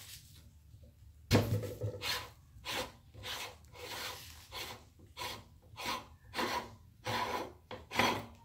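Repeated scraping rubs, about a dozen strokes starting a little over a second in, as fingers wipe ground snack crumbs off the perforated die plate of a cast-iron meat grinder.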